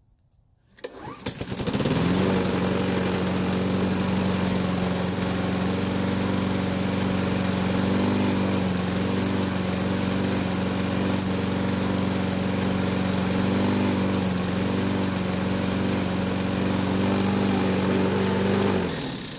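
Walk-behind lawn mower's small single-cylinder engine starting about a second in and then running at a steady governed speed. It shuts off near the end and winds down.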